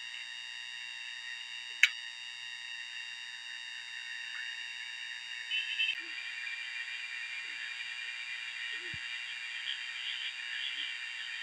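Steady high-pitched chorus of frogs and insects, with one sharp click about two seconds in and a short burst of chirping near the middle.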